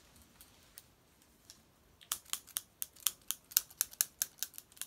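A quick, irregular run of sharp clicks, about five or six a second, starting about two seconds in: noise made to catch a cat's attention.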